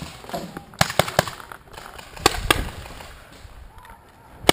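Paintball markers firing: sharp pops, three in quick succession about a second in, two more a little after two seconds, and another at the very end.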